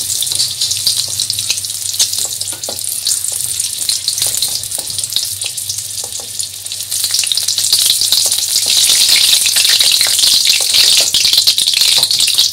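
Hot mustard oil sizzling in a kadhai as fried pointed gourd pieces are lifted out with a wooden spatula, with scattered clicks and scrapes of the spatula against the pan. The sizzle gets louder about eight seconds in.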